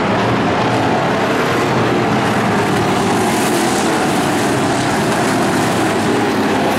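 Several dirt-track race cars' engines running on the oval, a loud steady drone without breaks.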